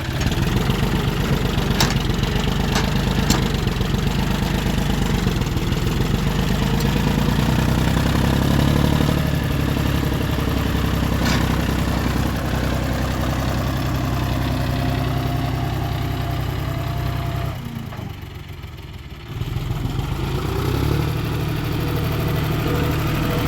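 John Deere 5050D tractor's three-cylinder diesel engine running steadily, dropping briefly quieter about eighteen seconds in before picking back up, with a few sharp clicks over it.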